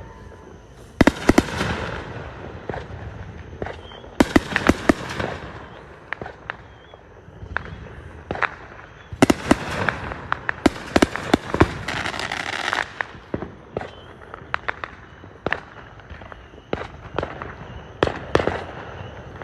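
Fireworks going off: clusters of sharp bangs and rapid runs of pops about a second in, around four to five seconds in, and from about nine to thirteen seconds in, with scattered single pops between.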